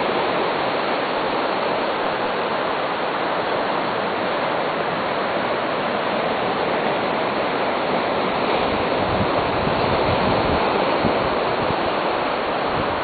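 Steady wash of ocean surf on the beach. About two-thirds of the way through, wind starts gusting on the microphone.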